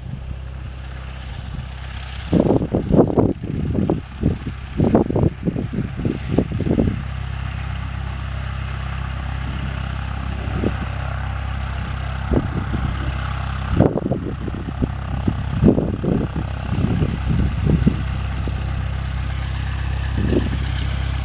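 Light single-engine propeller airplane, a Cessna 172 Skyhawk in the airport traffic pattern, with a steady engine-and-propeller drone. Irregular low thumps on the microphone come in two clusters.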